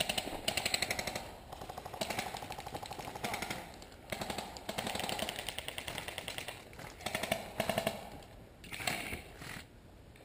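Airsoft guns firing on full auto in short bursts of rapid cracks, about seven bursts over several seconds with brief pauses between them.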